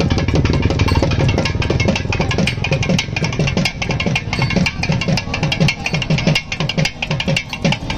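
Music dominated by fast, dense drumming, with a sustained melody dropping away early on and coming back just after.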